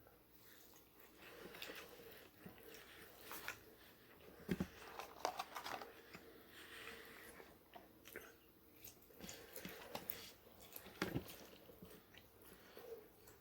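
A person chewing and biting into McDonald's food close to the microphone: irregular crunches and mouth clicks, with louder bites about four and a half seconds in and again near eleven seconds.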